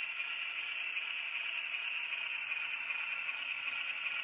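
Diesel engine sound from the QSI sound decoder of an HO-scale Atlas U30C model locomotive, played through its small onboard speaker: a steady, tinny engine drone while the model runs.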